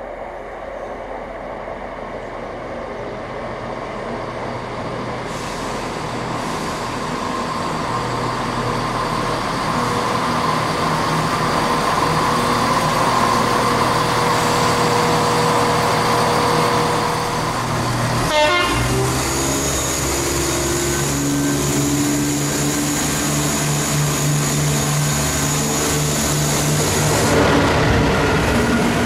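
A diesel multiple unit running through the station, its engine drone and wheel noise growing louder as it approaches and passes. About two-thirds of the way through, this gives way to a GBRf Class 66 diesel locomotive hauling empty container wagons, its engine running with deeper steady notes.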